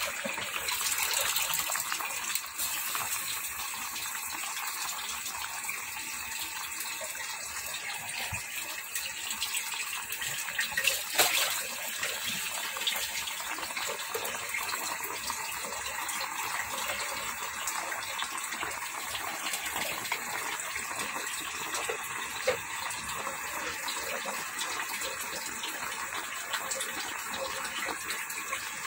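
Coconut-milk fish stew simmering in a pot under a layer of bok choy: a steady hissing, crackling noise, with a brief louder crackle partway through.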